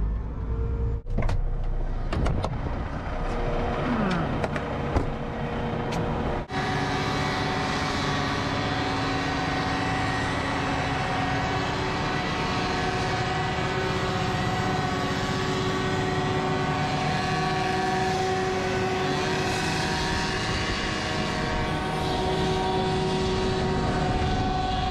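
Concrete mixer truck's diesel engine running while the truck is turned around and left waiting. About six seconds in the sound changes abruptly to a steady, even drone that holds unchanged.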